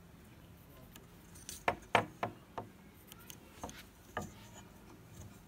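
Light, sharp taps and clicks of a steel ruler and pencil being handled and set down on a wooden board: a quick run of about five in about a second, starting a second and a half in, then two more a couple of seconds later.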